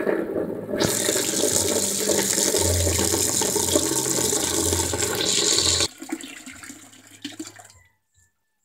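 Water from an outdoor tap splashing steadily into a plastic basin partly full of water, cut off suddenly about six seconds in as the tap is shut. A few faint dribbles follow and die away.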